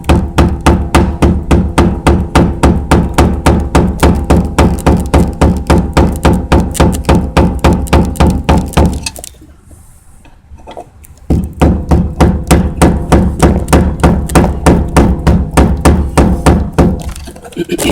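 Rapid, even metal-on-metal taps, about four or five a second, each leaving a ringing tone, with a pause of about two seconds midway: a hammer striking a screwdriver against the fuel pump assembly's retaining lock ring to drive it clockwise until tight.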